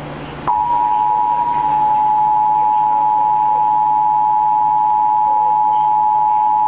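Emergency Alert System attention signal: the two-tone alarm of 853 Hz and 960 Hz sounded together. It starts abruptly about half a second in and holds steady, marking the start of an emergency alert broadcast.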